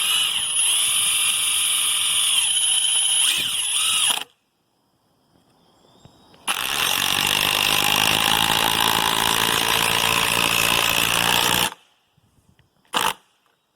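Cordless impact driver running in two long bursts of about four and five seconds, hammering as it works on rusted deck bolts, with a short blip near the end.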